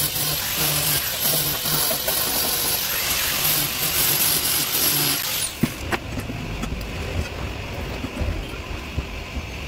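Handheld angle grinder grinding the ends of stainless steel bars: a steady high whine over a harsh hiss that cuts off about five seconds in. After that come a few light knocks as the steel is handled.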